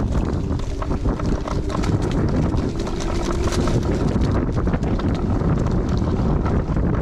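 Wind buffeting the microphone during an electric scooter ride: a steady low rumble with frequent short clicks and knocks from the ride.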